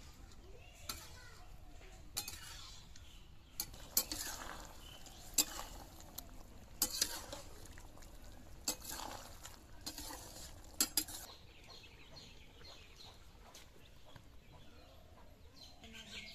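Metal spatula stirring a fish and cauliflower curry in a metal wok, scraping the pan and striking its side in sharp clinks about once a second. The stirring stops about eleven seconds in.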